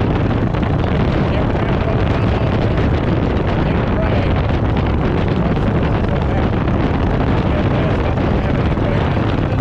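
Harley-Davidson motorcycle engine running steadily under way, with wind buffeting the microphone.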